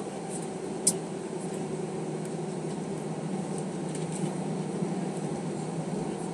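Steady cabin drone of an Airbus A320 taxiing on its engines, heard from inside the cabin, with a single sharp click about a second in.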